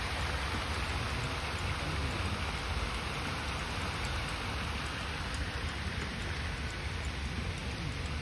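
Steady, even rushing hiss of a fountain's spray splashing down onto a pond, with a low rumble underneath.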